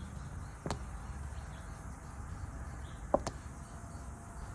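Two small metal clicks, about two and a half seconds apart, the second louder with a brief ring, over a low steady hum: the side bar and tumblers of a 1988 GMC pickup's door lock cylinder being worked out by hand.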